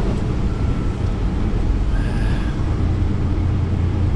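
Semi truck engine and road noise heard from inside the cab while driving: a steady low drone that grows a little stronger about three seconds in.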